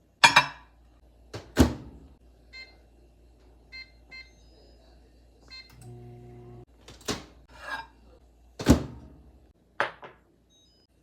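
A handful of sharp knocks and clunks of household objects being handled, with several short electronic beeps in between and a brief low hum about six seconds in.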